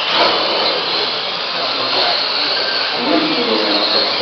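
Electric Mini-class radio-controlled cars racing, their motors and drivetrains making a steady high whine over a hiss.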